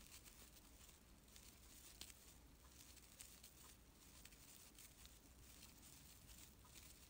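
Very faint rustling of glittery acrylic scrubber yarn being worked with a metal crochet hook, with scattered soft ticks.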